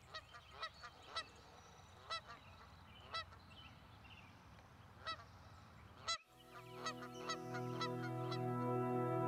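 Geese honking: scattered single honks over the first six seconds. They cut off suddenly, and soft acoustic guitar music fades in.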